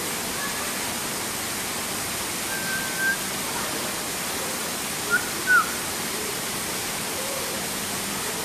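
Steady rushing background noise with a few short whistled calls on top: one flat whistle about three seconds in, then two brief falling whistles a little past five seconds.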